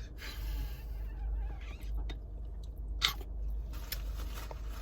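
A person chewing and biting into fast food, with irregular crunchy bites and one sharp crunch about three seconds in.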